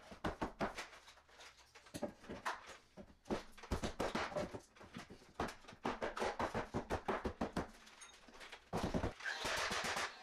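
Faint, quick clicks and knocks of wooden barnwood boards being handled and fitted against a wall, with a run of rapid, evenly spaced clicks about two-thirds of the way through.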